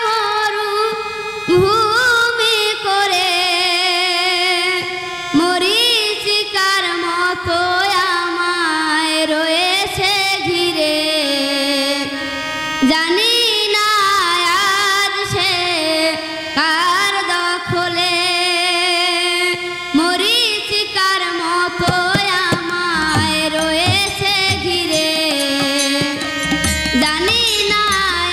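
A woman singing a slow Bengali folk song in long, ornamented phrases with a wide vibrato. Light drum strokes sit underneath and come through more plainly near the end.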